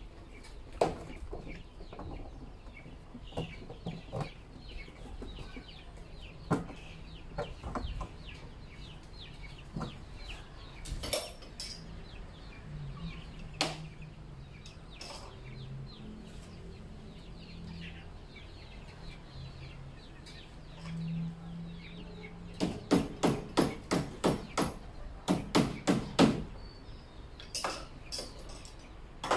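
Chickens clucking and chirping in the background, with a fast run of about a dozen sharp knocks, roughly three a second, a few seconds before the end.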